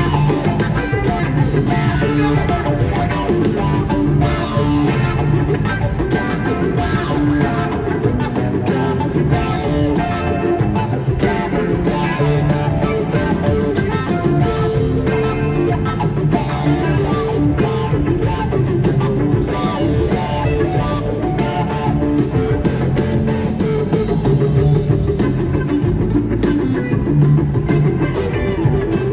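A rock band playing live, with guitar to the fore over a dense, steady full-band sound.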